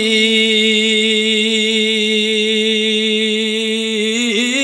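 A man's voice holding one long sung note, amplified through a microphone, with a slight waver, then breaking into quick melodic turns near the end. It is a Bengali waz preacher chanting a tearful supplication in the sung waz style.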